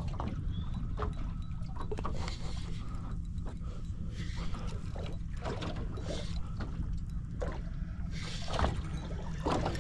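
Water lapping and splashing against a small boat's hull in irregular short slaps, over a steady low rumble.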